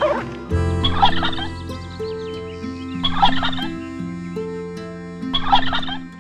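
A bird calling three times, about two seconds apart, in short bursts of rapid rattling notes, over steady background piano music.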